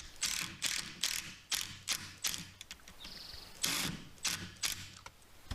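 Hand-tool work on a wooden screen door frame: a run of short, sharp ratcheting clicks at an uneven two to three a second, with a brief high whine about three seconds in.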